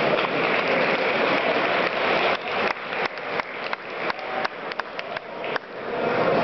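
Crowd noise in a fight arena. About two and a half seconds in, a quick run of roughly a dozen sharp smacks starts, about four a second, and it stops shortly before the end.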